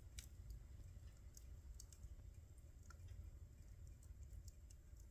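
Wood fire in a fireplace crackling faintly, with small irregular pops and snaps over a low, steady rumble.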